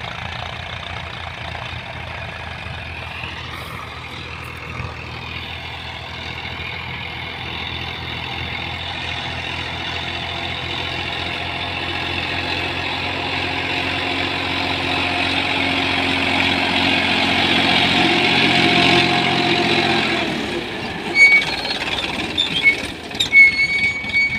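Farm tractor's diesel engine running steadily, pulling a seed drill and growing louder as it comes closer. About 20 seconds in the engine note drops away, and sharp metallic clinks and rings from the seed drill's steel frame and tines follow.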